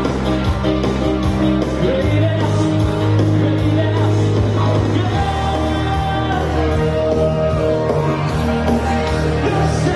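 Rock music with singing at a steady, loud level.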